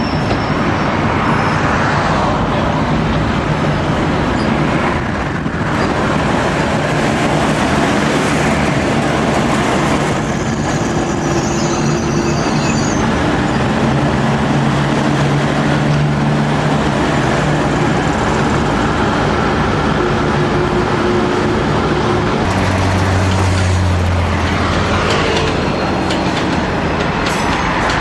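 V/Line VLocity diesel multiple unit running past close by, with a steady drone from its underfloor diesel engines over the noise of its wheels on the rails. About two-thirds of the way in, a deeper engine note comes in as another diesel railcar approaches.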